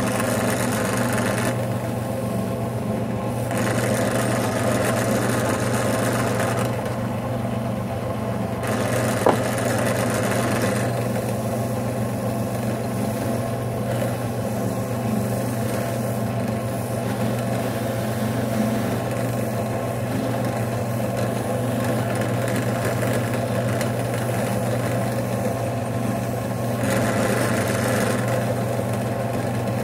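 Benchtop drill press running at about 1630 RPM with a stitched cotton buffing wheel, a steady motor hum throughout. A brighter hiss comes and goes in stretches as a Corian slingshot handle is pressed against the wheel and polished with blue compound. A single short click comes about nine seconds in.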